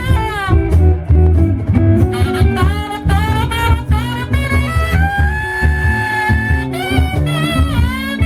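Live blues band playing, with a saxophone solo over guitar and bass backing; the horn bends through phrases and holds one long note in the middle.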